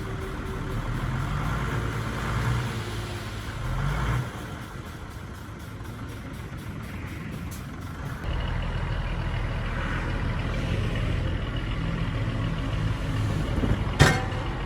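Heavy diesel engine of construction machinery running, rising in loudness about eight seconds in, with one sharp knock near the end.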